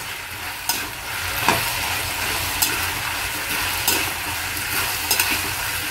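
Diced potatoes, tomato and cumin sizzling steadily in hot oil in a non-stick kadhai while a slotted steel spoon stirs them, with a few short scrapes and knocks of the spoon against the pan.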